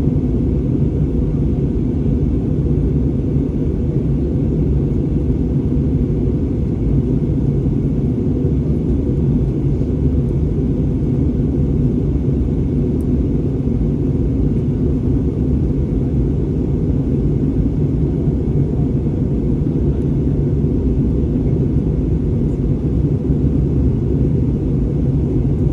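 Steady low rumble of engine and airflow noise inside the cabin of an Airbus A320neo, even throughout with no change in pitch or level.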